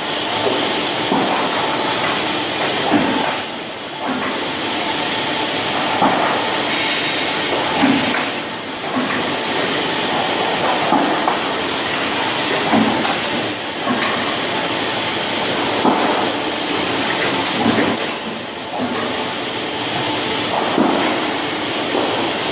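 Steel sheet cut-to-length line running: steady machine noise from the line, with a short clunk every second or two as the flying guillotine shear cuts the sheet.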